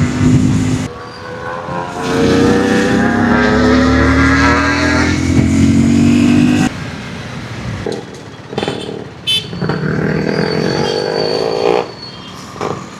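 Yamaha RX135 two-stroke single-cylinder engine through an open-cat silencer packed with glass wool, accelerating on the road. Its pitch climbs for about five seconds, cuts off sharply as the throttle closes, and climbs again near the end.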